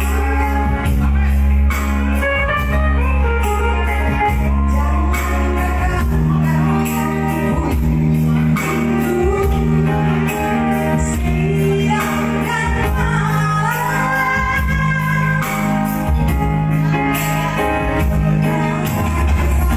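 A woman singing through a handheld microphone and PA, her voice high and piercing, over instrumental accompaniment with steady sustained bass notes.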